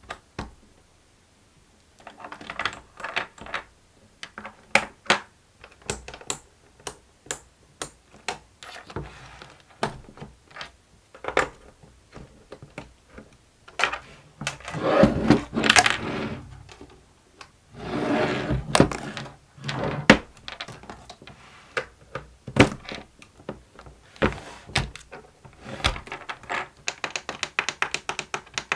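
Plastic clicks, taps and knocks from the buttons, switches and parts of a fidget busy board toy being worked by hand, with two longer scraping sounds around the middle and a run of rapid clicking near the end.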